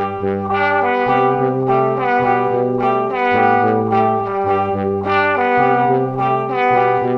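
Background music with sustained chords over a bass line that changes note about once a second.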